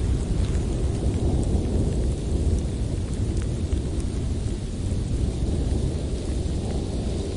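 Blizzard wind blowing steadily, a continuous deep rumbling rush with faint scattered ticks above it.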